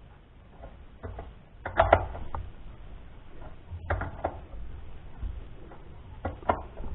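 Handling of tools and metal parts during a hand repair: a few sharp knocks and clinks, the loudest pair about two seconds in, more near four seconds and twice near the end.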